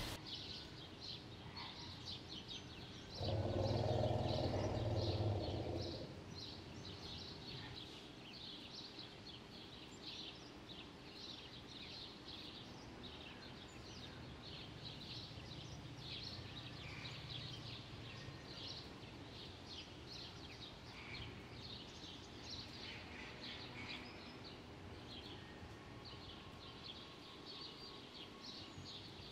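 Birds chirping steadily in short, high calls. About three seconds in, a louder low rushing noise sets in and lasts about three seconds.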